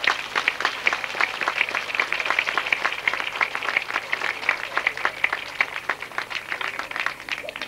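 Audience applauding: many people clapping in a dense patter that thins out near the end.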